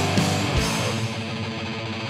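Black thrash / speed metal band recording: distorted electric guitar with loud full-band hits in the first half, after which the guitar carries on a little more quietly.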